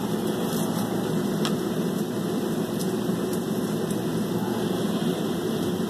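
Steady hum of a running appliance, with a few faint knife taps on a plastic cutting board as garlic cloves are cut.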